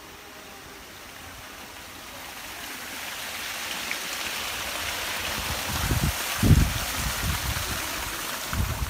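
Small waterfall trickling and splashing down a rock face, growing louder over the first few seconds, with a few low thuds from about six seconds in, the loudest among them.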